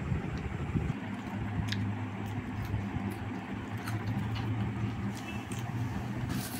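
A steady low hum, with scattered light clicks and taps.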